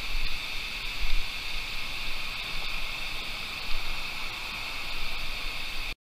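Shallow, stony stream running steadily, with a few low bumps on the microphone. The sound cuts off suddenly near the end.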